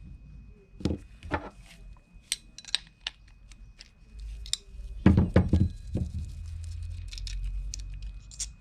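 Small clicks, knocks and thunks of a Daiwa fishing reel being taken apart by hand, its metal parts and tools tapping and clattering, with a few louder thumps about five seconds in. The reel has had water inside it and is rusting.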